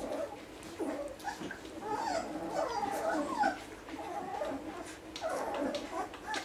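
One-week-old basset hound puppies squeaking and whimpering as they nurse, many short high calls overlapping throughout.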